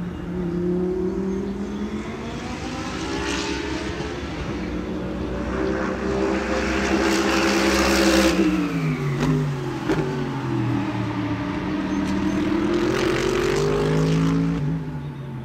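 Race car engines running at speed: each engine note climbs as a car approaches, then drops sharply as it passes, once about eight seconds in and again near the end.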